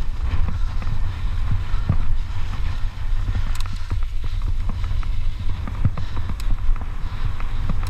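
Wind buffeting the microphone over mountain-bike tyres rolling fast on a dusty dirt trail, with scattered knocks and rattles as the bike runs over bumps.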